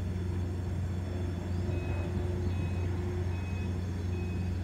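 Low steady hum of the moored cargo ship Azeria Maru's machinery. From about two seconds in, a reversing alarm beeps steadily, a little more than once a second.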